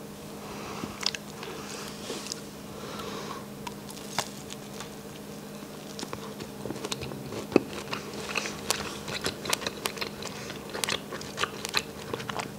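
Close-miked biting and chewing of a chocolate-dipped strawberry: a run of sharp, wet mouth clicks that comes thickest in the second half.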